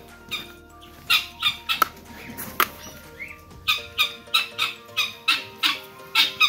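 Guineafowl calling: a run of short repeated squawks, scattered at first and then coming steadily at about three a second from about four seconds in. Background music plays underneath.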